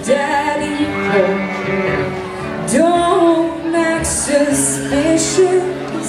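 Live folk band playing a song, with singing over acoustic guitar and upright bass.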